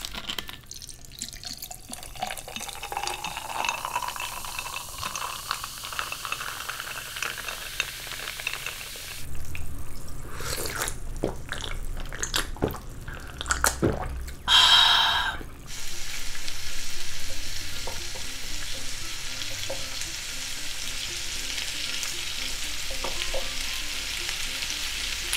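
Cola poured from a plastic bottle into a glass of ice, fizzing, the pitch of the pour rising as the glass fills. Then ice clinking in the glass and gulps as it is drunk, with one short loud burst about fifteen seconds in. For the last several seconds, pork intestines sizzle steadily on an electric grill.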